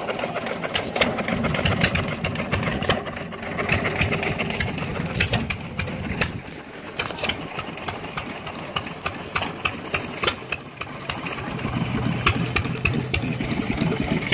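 Old flywheel stationary gas engines running, a low chugging drone with many sharp irregular pops from their firing strokes. A steadier low engine hum joins near the end.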